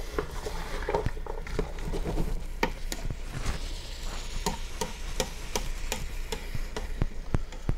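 A spoon stirring diced chicken and vegetables in an enamel stock pot, with irregular clicks and scrapes against the pot, over a faint sizzle of the food frying.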